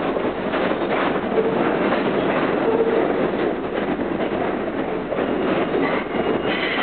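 New York City R68 subway train pulling out of an underground station, its cars running past at close range with a steady noise of wheels on the rails.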